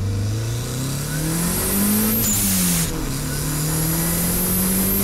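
Turbocharged Mazda Miata's four-cylinder engine revving up under boost, with a faint rising turbo whine. About two seconds in the throttle closes and the eBay HKS-replica blow-off valve vents in a short hiss; the revs drop, then climb again.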